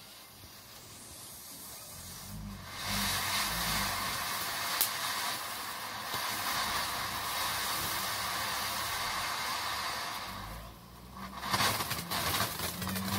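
Jombo Rocket Fountain 20 firework fountain going off: after a faint fuse sputter it bursts into a loud steady hiss of spraying sparks about two and a half seconds in. Near the end the hiss dips briefly and gives way to rapid crackling.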